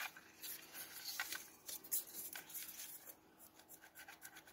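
Faint clicks and rustles of hands working motorcycle headlight wiring and pulling at its plastic plug connectors, busier in the first half and dying down after about three seconds.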